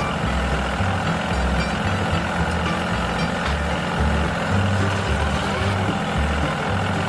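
Mini bulldozer's engine sound running steadily, with background music carrying a pulsing bass line.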